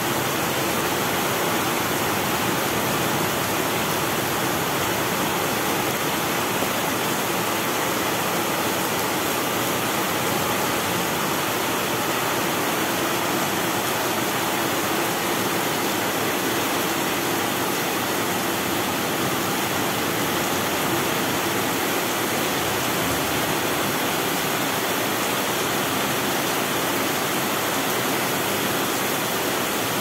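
Steady rain falling: an even, unbroken hiss of raindrops.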